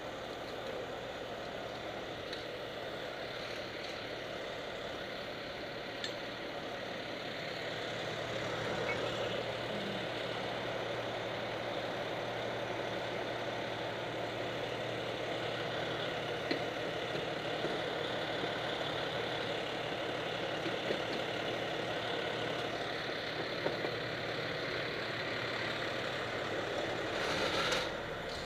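Fire engine's diesel engine running steadily, heard from inside the apparatus, growing a little louder after about eight seconds, with a brief louder swell near the end.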